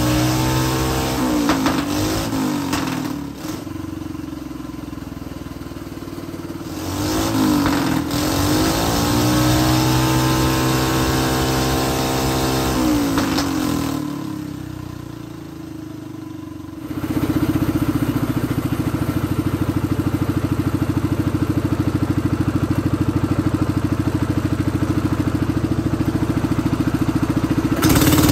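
Small single-cylinder hydrogen-converted kart engine, fed a petrol and engine-oil mix in place of its cooling water, being revved up and down by hand on the throttle several times. About 14 s in it drops to a quieter low idle, then from about 17 s it is held at a steady fast run.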